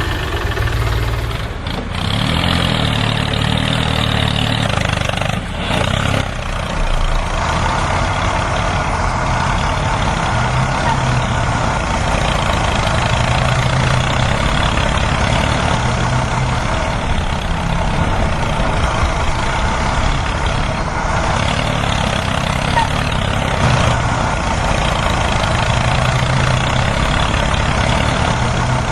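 An engine running steadily at idle with a low throb, the sound of a tractor or truck engine.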